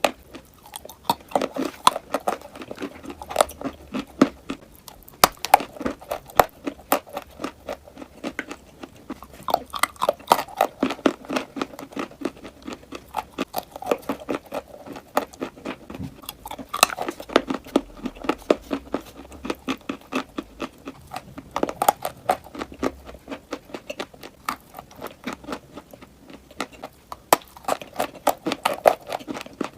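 A person biting and chewing crunchy chalk and clay close to the microphone: rapid sharp crunches, bunched into bouts that swell every few seconds.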